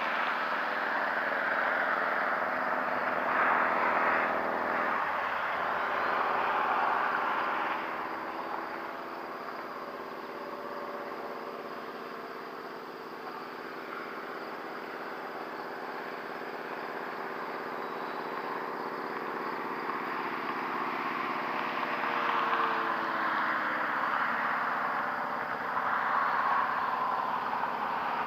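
Electric RC model RV-9 airplane flying overhead: a steady propeller and motor drone that swells and fades as it passes. It is louder in the first several seconds and again near the end, and its pitch slides down slightly a little past two-thirds through.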